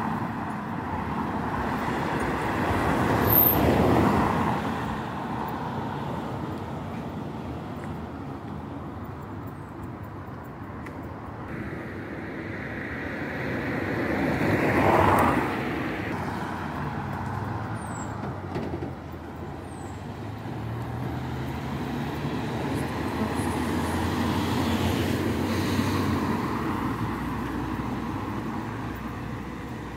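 Road traffic passing on a street: cars go by close about 4 seconds in and again about 15 seconds in, each swelling and fading, and in the second half a vehicle's low engine note rises in pitch.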